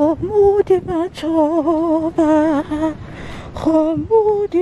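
A voice singing a wordless melody in a run of short held notes with a wavering pitch, broken by brief pauses and a few sharp clicks.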